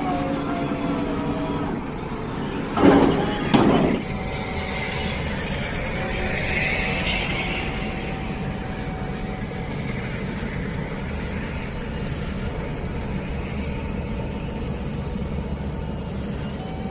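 Heavy machine engine running steadily with a low rumble, broken by two short, loud bursts of noise about three seconds in.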